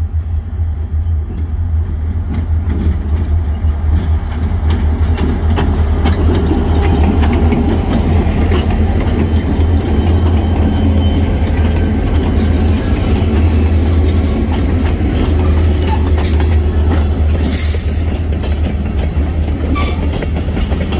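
Three EMD GP20 diesel-electric locomotives pass close by, their engines rumbling low and growing louder over the first few seconds. This is followed by the clicking of freight-car wheels over the rail joints as tank cars roll past, with a brief hiss near the end.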